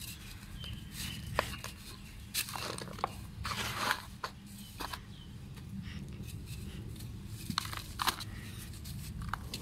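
Dry red dirt blocks being crumbled by hand: scattered crunches and crackles, with a longer rush of crumbling dirt a little before halfway.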